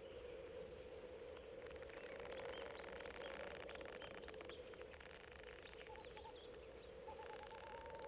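Faint outdoor night ambience sound effect: rapid chirring of small creatures over a steady low hum, with short warbling calls twice near the end.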